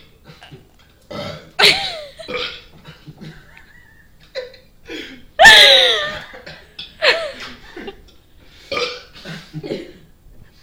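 Loud belches traded back and forth between two people, several in a row. The loudest and longest, about five and a half seconds in, slides down in pitch.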